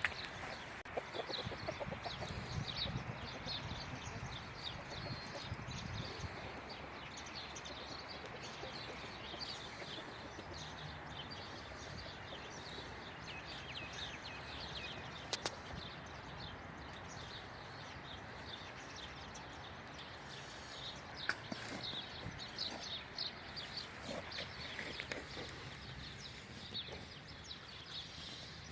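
Farmyard chickens clucking, with many short high chirps over a steady background hiss.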